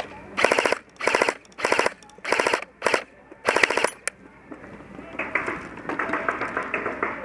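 Airsoft gun firing five short full-auto bursts, each about half a second long. From about five seconds in, quieter, scattered airsoft fire follows.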